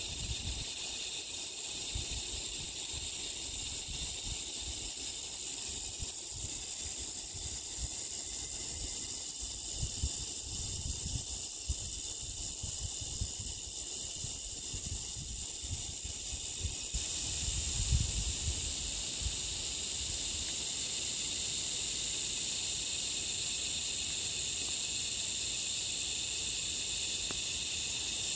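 A steady insect chorus: a high, shrill drone with a fast even pulsing in it, growing a little louder about two-thirds of the way through. An irregular low rumble runs underneath, strongest at about the same point.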